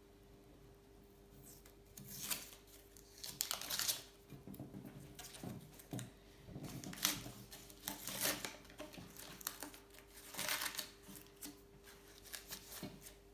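Painter's masking tape and paper being peeled and torn off a freshly painted bicycle frame: irregular crinkling, ripping tears starting about two seconds in and coming in bursts.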